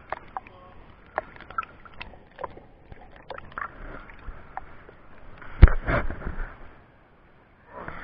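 River water sloshing and gurgling against a waterproof camera held at the surface, with scattered small clicks and knocks. About five and a half seconds in comes a loud knock followed by a surge of splashing and rushing water.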